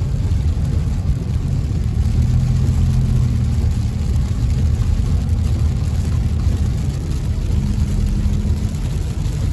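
Inside a car driving in heavy rain: a steady low rumble of engine and tyres on the wet road, with a fainter hiss of rain on the car.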